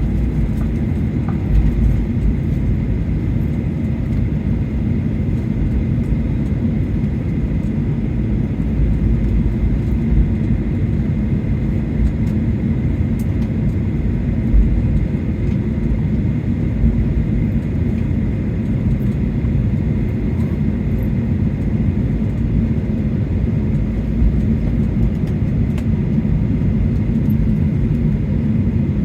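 Boeing 737-800 passenger cabin while taxiing after landing: a steady low rumble from the engines at idle and the rolling gear, with a faint steady whine above it.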